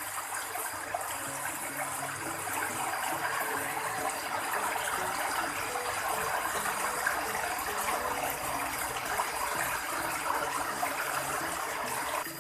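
Steady rush of flowing water, with a faint melody underneath.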